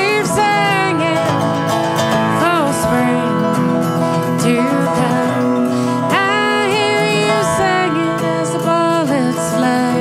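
Acoustic guitar and dobro playing together, the dobro's slide gliding up and down between notes.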